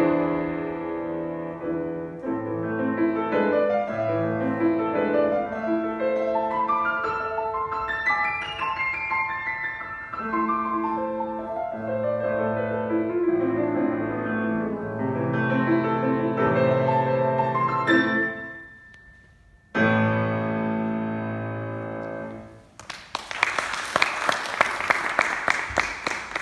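A Steinway grand piano plays a solo classical piece: flowing runs of notes that die away, a short pause, then a final chord left to ring and fade. Applause breaks out near the end.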